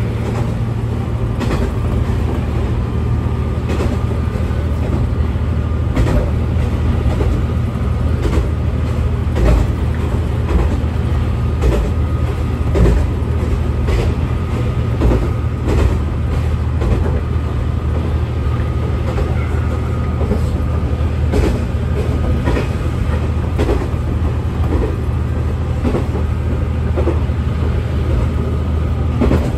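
Diesel railcar running, with a steady low engine drone and scattered clicks and knocks at irregular intervals.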